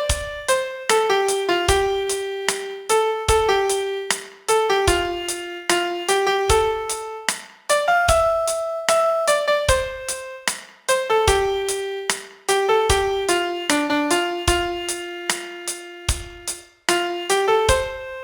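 Piano playing a pop-song melody one note at a time, about two notes a second, with deep low notes struck every second or two underneath.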